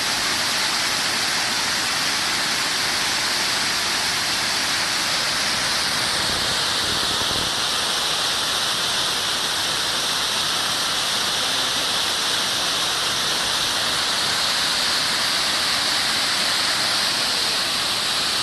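A waterfall rushing steadily: the even roar of falling water splashing onto rocks.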